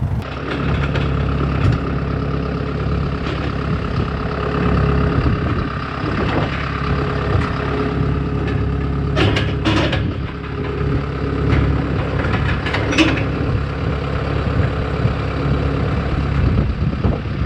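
An engine running steadily at a low, even speed, with a few short knocks about nine seconds in and again near thirteen seconds.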